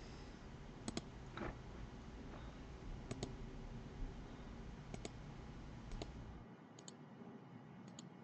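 Computer mouse clicks, single and doubled, every second or two over a faint steady hiss and hum; the hum drops away about six and a half seconds in.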